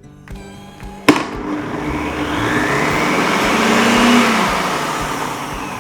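Cecotec Mambo kitchen robot running its turbo function: a click about a second in, then the motor and blades whir up to maximum speed and run down again near the end.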